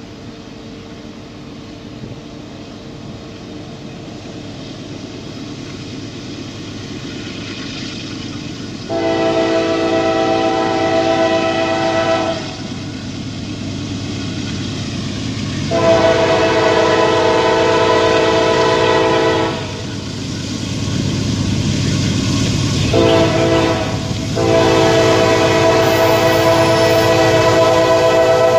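Norfolk Southern diesel freight locomotive approaching, its rumble growing steadily louder. Its air horn sounds two long blasts, a short one and a final long one that is still sounding at the end. This is the long-long-short-long pattern of the grade-crossing signal.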